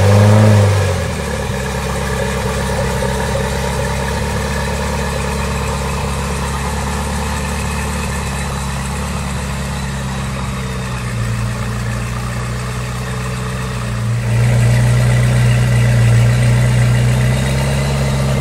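Zenvo TSR-S's twin-supercharged V8 catching with a brief flare and settling into a steady idle. About 14 seconds in, the idle rises a step and gets louder, then holds.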